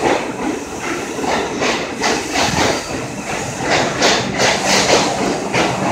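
R62 subway train running through the station without stopping. Its wheels clack sharply again and again on the track over a steady rumble.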